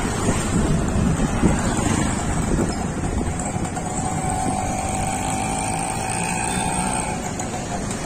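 Motorcycle ride through city traffic: the bike's engine running and wind buffeting the microphone, with a faint steady whine from passing traffic in the second half.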